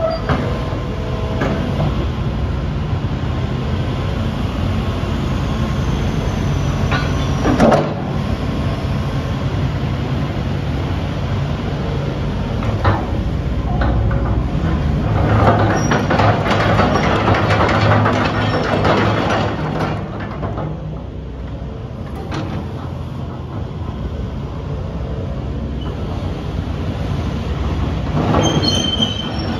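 Hitachi Zaxis 180LC crawler excavator's diesel engine running steadily, with sharp metallic clanks now and then. The engine grows louder for a few seconds mid-way, then settles.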